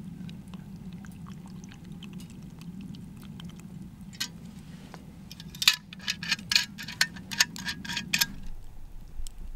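Liquid poured in a steady stream from a stainless steel bottle into a plastic mug, the stream stopping near the end. A quick run of sharp clinks comes in the last couple of seconds of the pour.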